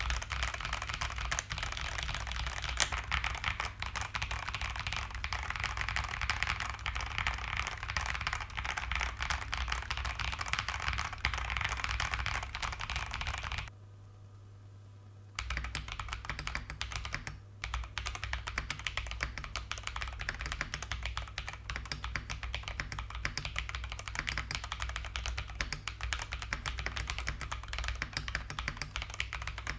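Typing on a Feker JJK84 75% mechanical keyboard with Ajazz Banana tactile switches and SA profile keycaps, a fast, steady run of key clacks. It stops for a second or so about halfway through, then carries on.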